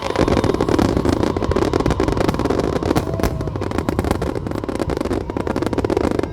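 Fireworks going off in a dense barrage: many rapid crackling bangs packed closely together over a continuous din.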